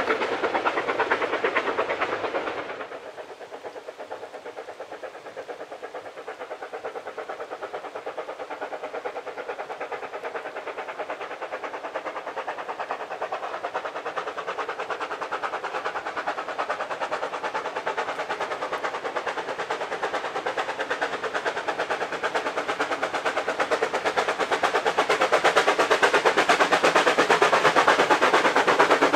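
Narrow-gauge steam tank locomotive hauling a freight train, its chuffing exhaust beats growing steadily louder as it approaches and comes close. In the first couple of seconds a louder train sound is cut off abruptly.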